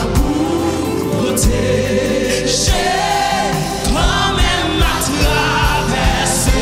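Gospel choir of mixed voices singing a Haitian Creole worship song in harmony, backed by an electronic keyboard over a steady beat.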